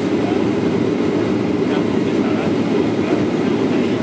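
Steady, loud cabin roar of a jet airliner in flight, from the engines and the airflow over the fuselage, heard at a window seat.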